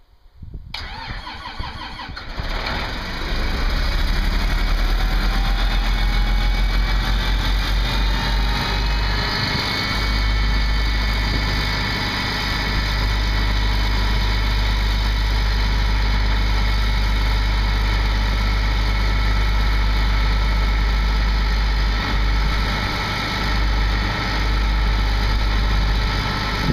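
2009 Case IH 7120 combine's diesel engine starting on a cool day: about a second in, the starter cranks it for a couple of seconds, then it catches and runs loud and steady. A whine rises over the next several seconds, then holds steady.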